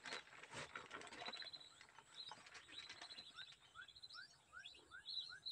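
Faint whistling-duck calls: a run of about six short rising whistles in the middle, over a steady scatter of high chirps.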